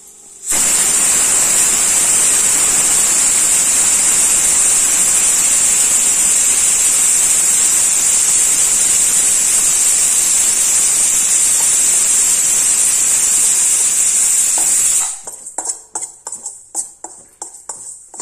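A loud, steady hiss that cuts in suddenly and stops just as suddenly after about fifteen seconds. It is followed by a metal spoon clicking and scraping as black sesame seeds are stirred in a stainless-steel kadai.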